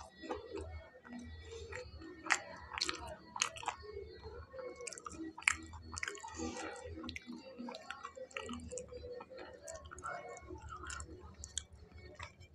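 A person chewing fried pakoras close to a clip-on microphone: wet mouth sounds broken by many irregular, sharp crunchy clicks.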